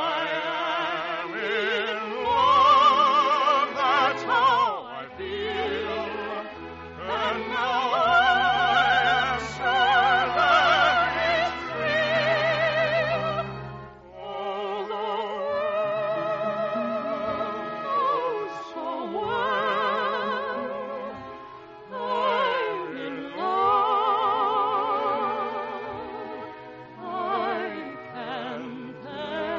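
Operatic singing with strong vibrato over an orchestra, in long phrases with short breaks between them, on an early-1950s radio broadcast recording with dull top end.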